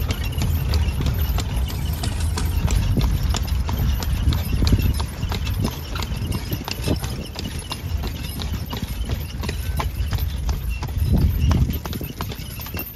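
Hooves of a carriage horse clip-clopping at a steady walk on a paved road, with a low rumble underneath.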